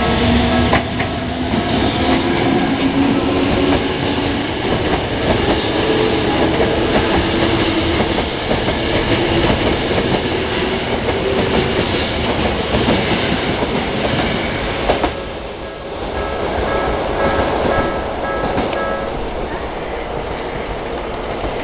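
Toei Asakusa Line 5300 series electric train passing over a level crossing, with wheels clattering over the rails and a motor whine that shifts slightly in pitch over the first several seconds. A level-crossing warning bell rings in a repeating two-tone pattern, heard most clearly after the train noise dips near the end.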